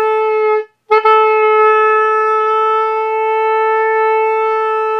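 Oboe playing one long held note at a steady pitch, with a short break about 0.7 seconds in before the same note is tongued again and sustained. The note is held while the angle of the instrument against the embouchure is shifted to find the best spot for the reed.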